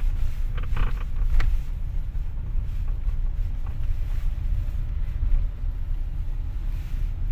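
Creaking and a few short clicks from a Hyundai's electric power steering column over a steady low rumble, the sound of a worn steering reduction gear. The clicks come in the first second and a half.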